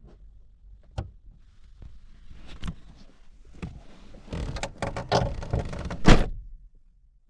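A few sharp clicks, then a burst of knocks, clunks and rustling, the loudest clunk about six seconds in.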